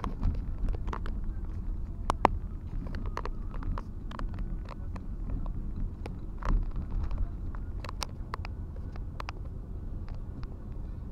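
Steady low road and engine rumble inside a moving truck cab at motorway speed. Frequent sharp clicks and rattles from the cab come over it, the loudest about two seconds in.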